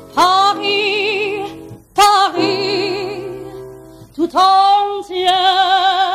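A woman singing long held notes with a wide vibrato, in three phrases, each sliding up into its note; the third, held longest, begins a little over four seconds in.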